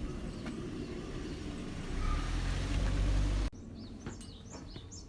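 Steady outdoor noise with a low rumble that swells louder, cutting off abruptly about three and a half seconds in; then small birds chirping repeatedly with short, quick calls.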